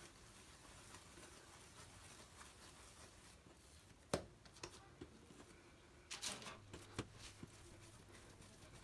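Faint soft sounds of hands rolling and patting balls of dough on a stone countertop, with a sharp tap about four seconds in and a short rustle a little after six seconds.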